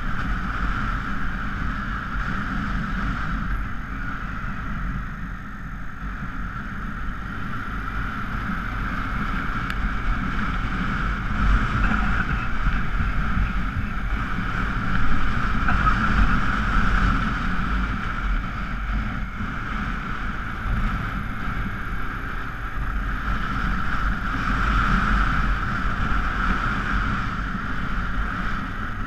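Honda Africa Twin XRV750's V-twin engine running under way at steady road speed, heard from a camera mounted on the bike, with wind rushing over the microphone. The level swells a little around the middle.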